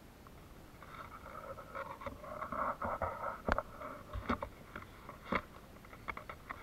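Camera handling noise on a selfie stick: scratchy rubbing for a couple of seconds, then a few sharp knocks, with smaller ones near the end.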